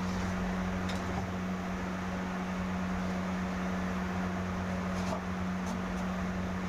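A steady electrical hum over a constant hiss, with a few faint clicks.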